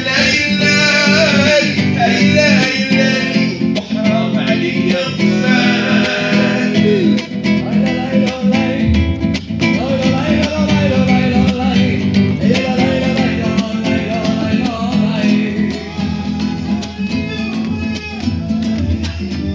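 Acoustic guitar strummed and plucked in a flamenco-like style, with a hand frame drum tapping along. A man sings over it, most strongly in the first few seconds.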